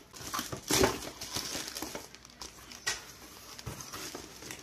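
Plastic shrink-wrap being pulled off a cardboard box and the box flaps opened: irregular crinkling and rustling with a few sharp knocks, loudest about a second in.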